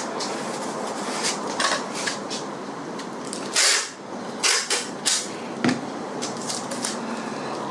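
Adhesive tape being pulled off the roll and torn into strips for a Depron foam sheet: a string of short, sharp ripping strokes, the longest and loudest about halfway through, with a light knock of handling near the end.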